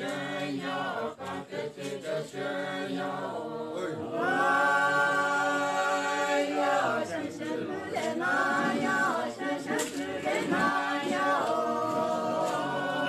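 A group of voices singing together without instruments, breaking into long held notes about four seconds in.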